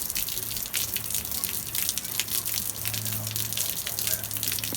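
Heavy rain pouring: a dense, irregular patter of drops and drips over running water.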